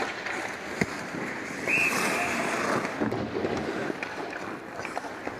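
Ice hockey play: skate blades scraping the ice, with sharp stick and puck clacks, the sharpest a little under a second in, and a louder stretch with a brief high call about two seconds in.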